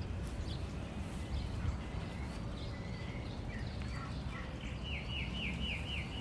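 Wild songbird chirping over a steady low background rumble, with scattered calls at first and then, from about five seconds in, a quick run of short falling chirps at about five a second.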